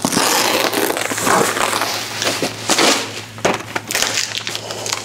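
Packaging crinkling and rustling: a plastic-wrapped metal plate being pulled loose from a foam insert and lifted out of a cardboard box, with many small crackles from the plastic sheeting.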